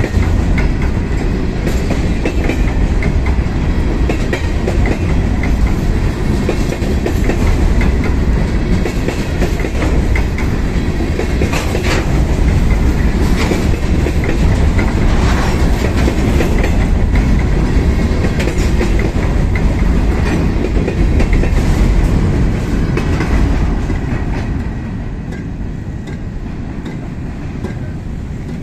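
Freight train of covered hopper cars rolling past: a steady rumble of steel wheels on rail with clickety-clack over the rail joints, fading somewhat in the last few seconds.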